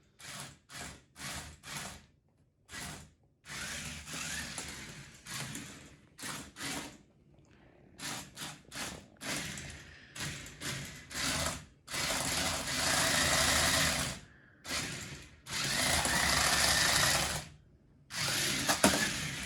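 Electric drive motors of a remote-control stunt car whirring in many short stop-start bursts, with two longer runs of about two seconds, as the car is driven in spurts.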